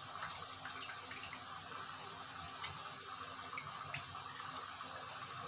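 Water dripping and trickling into a steel bowl as soaked urad dal vadas are pressed out by hand, with scattered small drips and splashes over a faint steady hiss.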